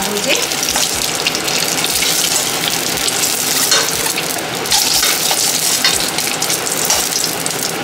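Hot oil sizzling and crackling steadily in a kadhai as whole boiled eggs and potatoes are lightly shallow-fried, with occasional light clicks of a metal utensil against the pan as the pieces are lifted out.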